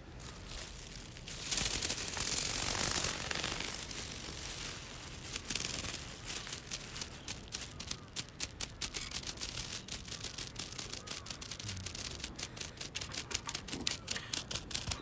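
Close handling noise: a loud rustle against the microphone, then a long run of rapid, irregular clicks and taps that comes thicker toward the end.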